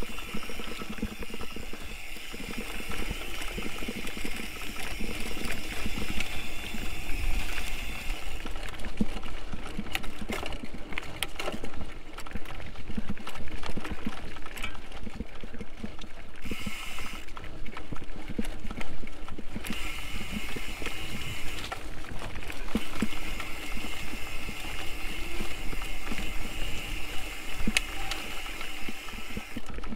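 Mountain bike ridden along a rough dirt singletrack: tyres crunching over the ground and a dense, irregular rattle from the frame and chain over bumps.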